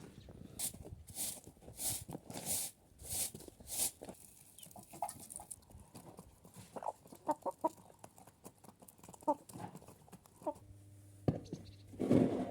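Chickens clucking in short, quick pitched calls through the middle. Before them comes a run of about six evenly spaced sharp noisy strokes, and near the end a single loud noisy burst.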